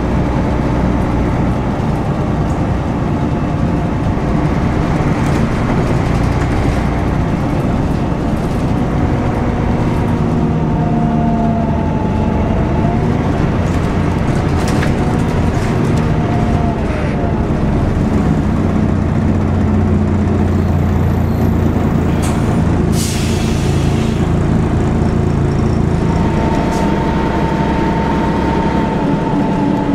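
Onboard a Volvo B10BLE single-deck bus on the move: the rear-mounted diesel engine and drivetrain run steadily, rising and falling in pitch as the bus pulls away and gathers speed, with rising whines from the drivetrain. A short, sharp hiss of compressed air from the air brakes comes about two-thirds of the way through.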